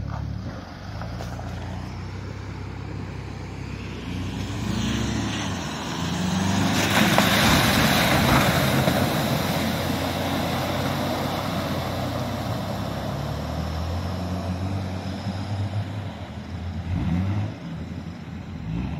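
Off-road 4x4 engines running and revving under load while driving through deep mud and standing water. A loud rush of splashing water and mud comes about seven seconds in and lasts a couple of seconds.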